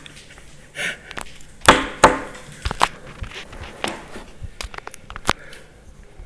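Phone-handling noise close to the microphone: scattered clicks and rubs of a finger on the phone, with a couple of short louder bursts about two seconds in.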